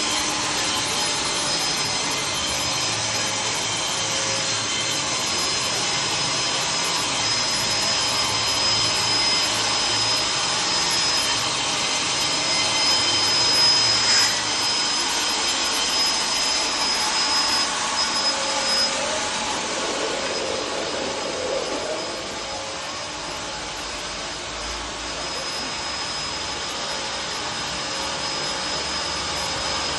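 Hand-built mobile sawmill running, a steady mechanical noise with a thin high whine; the whine drops out about two-thirds of the way through and the noise eases a little.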